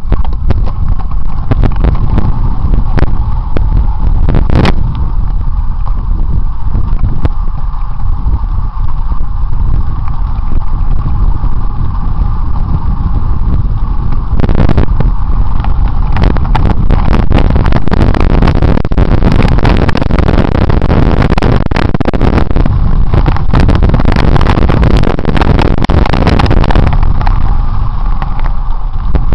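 Wind buffeting a helmet-mounted camera's microphone during a mountain bike ride down a bumpy, rocky dirt trail, with a steady low rumble. Rattles and knocks from the rough ground come through, thickest from about halfway in until shortly before the end.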